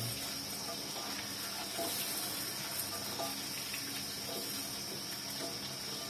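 Cassava pieces frying in hot oil in a covered pan: a faint, steady sizzle with scattered small crackles, under a constant high-pitched hiss.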